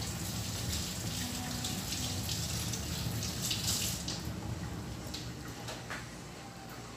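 Water boiling in a stainless steel pot, a steady bubbling hiss that is strongest for the first four seconds and then eases, with a few light clicks near the end.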